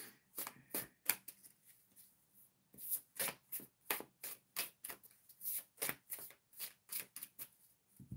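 A deck of tarot cards being shuffled by hand, overhand, as a quick run of short papery swishes, about three a second, with a brief pause a couple of seconds in.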